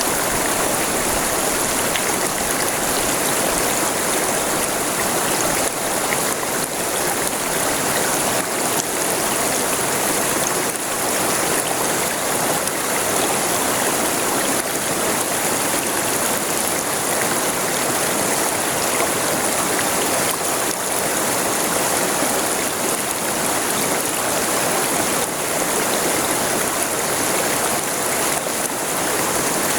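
River water flowing over its bed, a steady rushing with fine splashing and no let-up.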